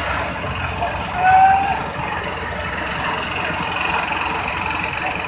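Steady engine noise from a fire engine standing by at a workshop fire, with short shouted calls over it, the loudest about a second in.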